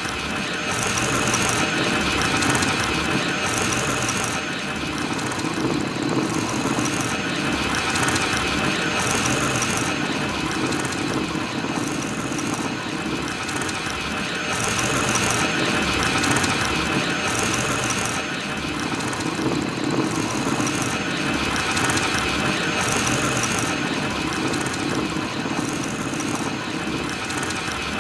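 Star Wars BB-9E droid's normal rolling sound effect: a continuous mechanical whirring and grinding, like a ball-shaped droid rolling along, that swells and eases slightly every few seconds.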